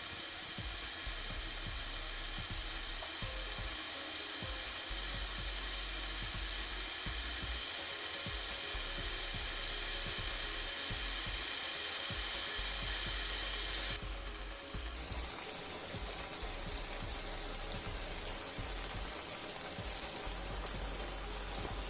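Chicken gravy bubbling and sizzling in an uncovered pan, a steady hiss with small crackles, as the water boils off and the oil starts to separate. About fourteen seconds in the hiss turns duller.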